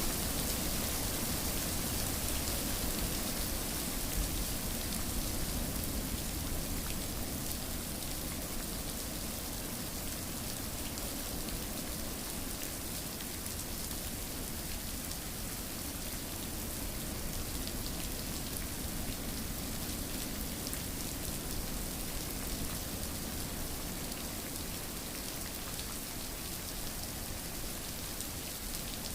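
Steady rainfall, a continuous hiss of rain with fine, scattered drop ticks.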